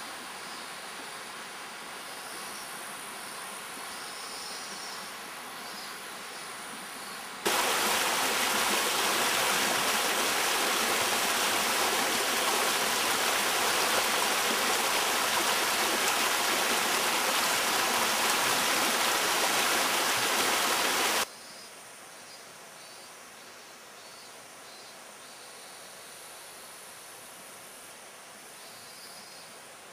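Mountain river flowing over rocks, with faint insect chirps above it; about seven seconds in, loud rushing whitewater from rapids cuts in abruptly and holds steady for some fourteen seconds before cutting out just as abruptly, leaving quieter stream flow and the insect chirps.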